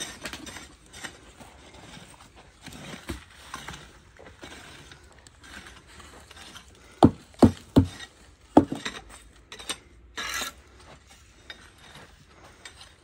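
Bricklaying work: scattered clicks and taps of trowels and bricks, with four sharp knocks a little past the middle and a short scrape soon after.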